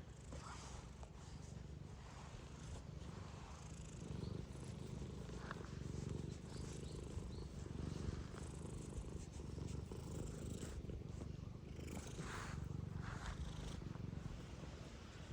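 Domestic cat purring close up: a steady low rumble.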